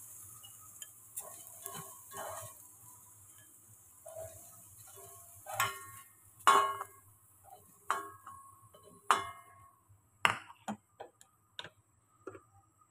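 Spatula scraping and tapping on a honeycomb-textured stainless steel frying pan: soft scrapes at first, then from about halfway a series of sharp taps roughly a second apart, each with a short metallic ring.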